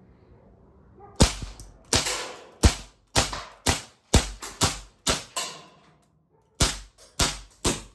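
Swiss Arms CO2 BB pistol firing 4.5 mm steel BBs: about eleven sharp shots in quick succession, roughly two a second, starting about a second in. There is a pause of about a second before the last three.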